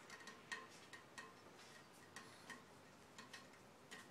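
Near silence with faint, irregular light ticks, a few each second.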